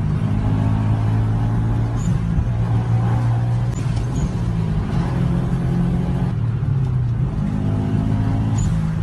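Turbocharged car engine running at steady revs, its pitch stepping up and down a few times, with a few brief faint high chirps.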